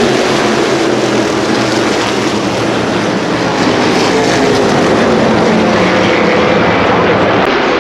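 NASCAR Modified race cars' V8 engines running together on track, a loud steady drone whose pitch drifts gently down and up as the cars pass.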